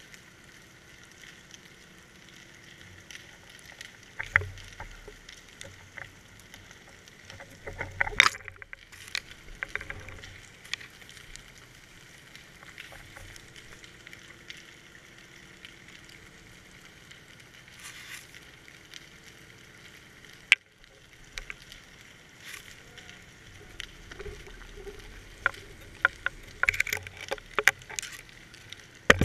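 Underwater sound muffled by a GoPro's waterproof housing: a steady faint hiss with scattered clicks and knocks of the rig. One sharp knock comes about eight seconds in and another around twenty seconds, with a flurry of clicks and knocks near the end.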